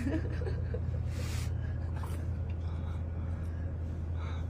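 Person drinking soda from a can, with a sharp breath about a second in and a short click near two seconds, over a steady low hum.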